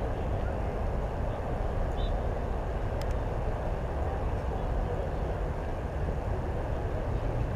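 Steady outdoor rumble of wind on the microphone, with faint distant voices from around the field.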